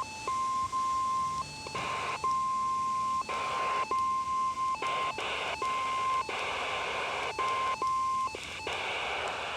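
NOAA Weather Radio warning alarm tone, a steady 1050 Hz beep, heard over a weak radio signal: the tone keeps dropping out into bursts of static with sharp clicks, and gives way to static alone near the end. The tone signals that a warning is about to be read, here a severe thunderstorm warning.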